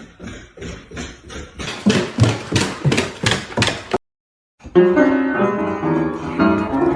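Background music: plucked guitar notes at a quick, even rhythm. About four seconds in, it cuts to half a second of silence, then different music with held notes begins.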